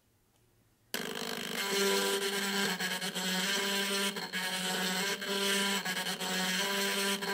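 Stepper motor driving a 3D-printed gear train that turns a LIDAR sensor platform, starting abruptly about a second in: a steady motor whine over a loud grinding, rasping gear noise, with the tone breaking off briefly now and then. It is rather noisy, which the builder puts down in part to the 3D-printed gears meshing together.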